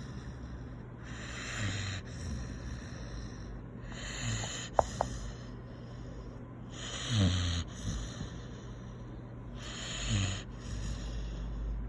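A sleeping dog snoring, with a snorting, pig-like grunt about every three seconds, four times, each with a hissing breath. A brief sharp squeak about halfway through.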